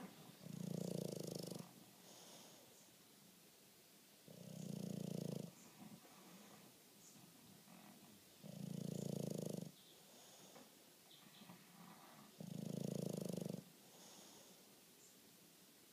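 Bulldog snoring: four loud snores about four seconds apart, each lasting a little over a second, with softer breathing between them.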